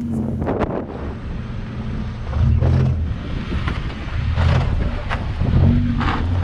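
Small old hatchback engines running at low revs as the cars creep down a steep rutted dirt track. Tyres crunch over stones, with several sharp knocks and scrapes, and wind buffets the microphone.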